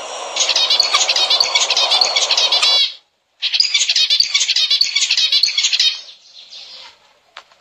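Zebra finches chirping and calling in rapid, dense high notes, in two stretches broken by a brief silence, fading out near the end.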